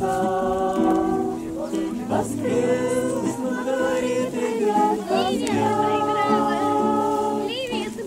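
A group of voices singing a song together in long held notes, accompanied by an acoustic guitar.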